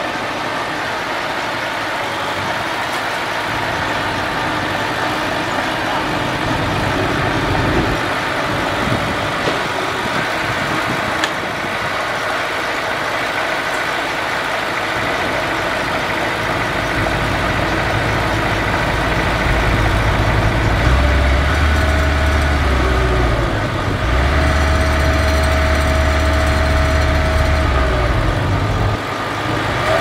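Diesel engine of a small crawler bulldozer working under load as it pushes a dump truck stuck in deep mud. The engine note grows deeper and louder through the second half, with a heavy low hum from about twenty seconds in that drops off sharply just before the end.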